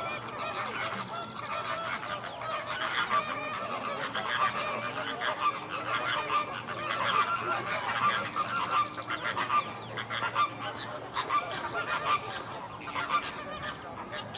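A flock of flamingos calling: many short, overlapping calls running together in a dense, uneven chatter.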